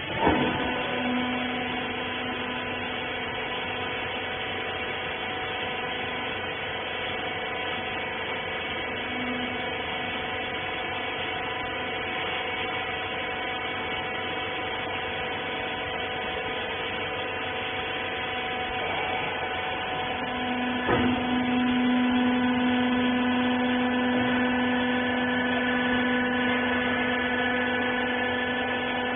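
Rag compression baler's hydraulic power unit running with a steady, pitched hum. A knock sounds just after the start and another about 21 seconds in, after which the hum grows louder.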